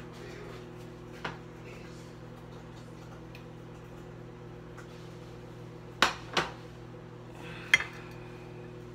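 Kitchenware handled on a counter: a light knock about a second in, two louder knocks past the middle and a sharp clack soon after. A steady low hum runs underneath.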